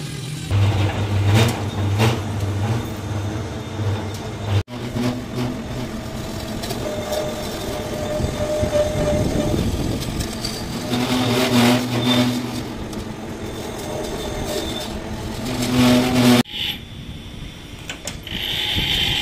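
Metal lathe turning a truck's rear axle housing: the motor and gears run steadily while the cutting tool shaves the steel, with a metallic ringing squeal from the cut.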